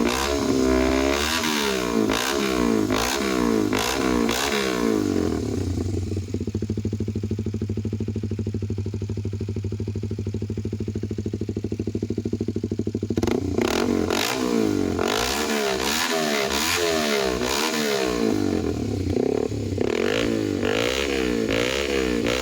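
Kawasaki Ninja 250SL single-cylinder engine through an Austin Racing aftermarket exhaust, revved in repeated quick blips, settling to a steady idle for several seconds from about five seconds in, then revved in blips again.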